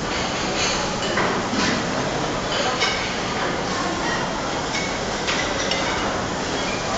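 Busy dining-hall hubbub: many voices chattering at once, with scattered clinks of dishes and cutlery.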